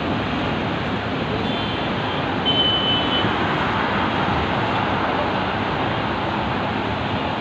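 Dense, slow city road traffic of cars, buses, auto-rickshaws and motorcycles: a steady wash of engine and road noise. A brief high-pitched horn sounds about two seconds in.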